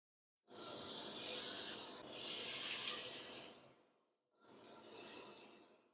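Anchovy-cracker batter ladled into hot oil in a wok, sizzling and hissing as it fries. The sizzle starts about half a second in and dies down after about three seconds, with a brief fainter sizzle near five seconds as a little more batter goes in.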